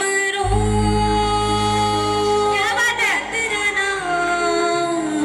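Song intro: a woman singing long, held, wordless notes over music, with a quick sliding ornament about three seconds in. A low sustained bass note comes in about half a second in and holds under the voice.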